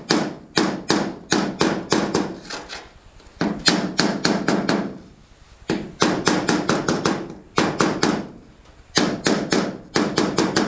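Body hammer tapping dents out of an aluminum canoe hull: runs of quick metallic strikes, about three a second, each ringing briefly, broken by short pauses every second or two.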